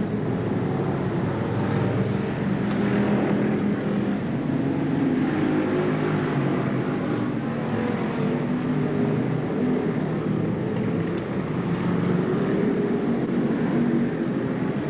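Several stock car engines running at race speed around an oval track, a steady overlapping drone whose pitches rise and fall as the cars pass.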